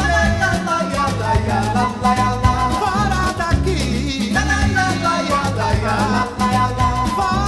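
Upbeat Latin music with singing over a steady beat and bass.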